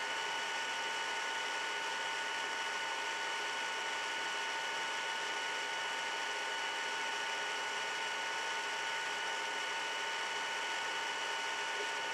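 Steady background hiss with several faint, unchanging high whining tones: a recording's electrical or equipment noise in an empty room, with no knocks.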